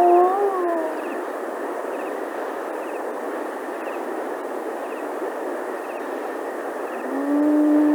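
Jungle ambience recording: a steady hiss underneath long, level-pitched animal calls. One call, rising slightly before falling away, ends under a second in, and another begins about seven seconds in.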